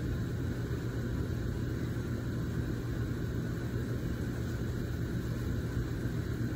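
Steady low hum with a hiss above it: room background noise.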